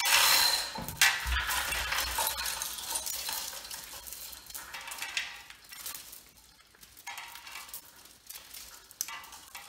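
Hand chain hoist being hauled, its chain clinking, while copper stator windings scrape and rustle as they are dragged up out of the steel stator housing. Loudest at the start, then fading, with a few sharp clinks later on.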